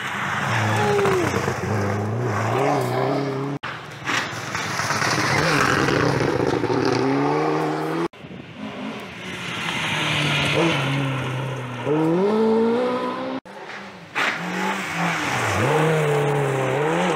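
Rally cars, among them a Subaru Impreza and a Peugeot 206, passing fast on a gravel stage in four short clips cut together. The engines rev up and drop through gear changes over the hiss of tyres on gravel, and each pass cuts off abruptly.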